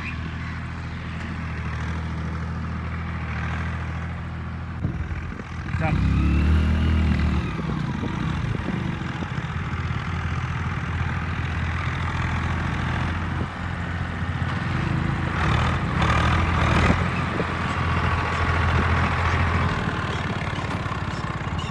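Swaraj 744 tractor's three-cylinder diesel engine running steadily under load as it pulls a tillage implement through the field. About six seconds in the revs briefly rise and fall.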